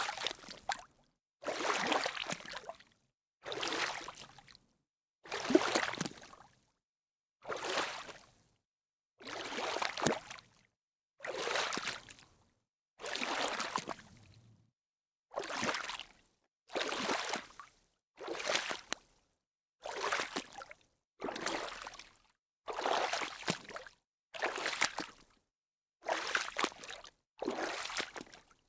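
Water splashing in a series of separate short splashes, each under a second or so, with brief silences between them, about one every one and a half seconds.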